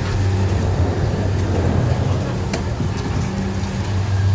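An engine running with a steady low hum, with a few light clicks.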